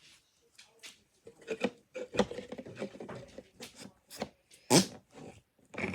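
Small objects being handled at close range: a series of light clicks, taps and rubbing, with one sharper knock near the end.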